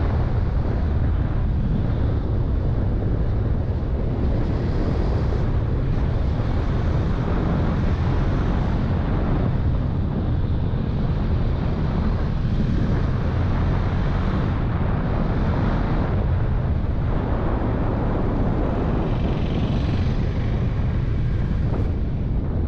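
Steady wind rush over the camera microphone on a motorcycle ridden at road speed, with the bike's running buried in it.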